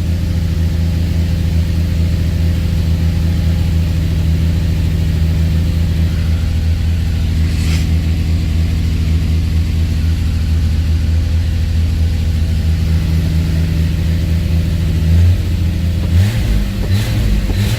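Ford Granada's straight-six running steadily at a cold fast idle on the choke, freshly started after a carburetor rebuild. About fifteen seconds in the engine note changes and turns uneven as the throttle is blipped, and the engine responds well even while cold.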